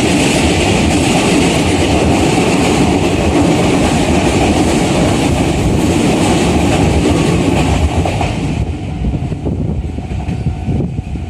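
Keikyu New 1000 series electric train passing close by, a loud steady running noise of wheels on the rails that drops away sharply about eight and a half seconds in as the train clears.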